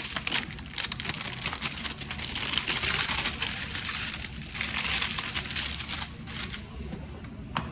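Plastic packaging crinkling and rustling as it is handled and opened, with many small crackles; it eases off near the end, followed by a single click.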